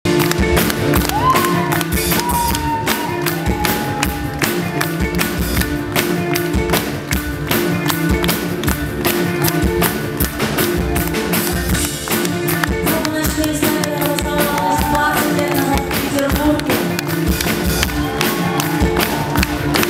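Live rock band playing: a steady drum beat under strummed acoustic guitar and keyboard chords, with a short melodic line weaving above.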